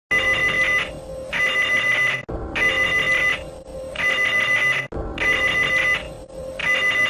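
Emergency alert alarm tone: a high, rapidly trilling ring, like an electric bell, sounding in short bursts about six times with brief gaps between them.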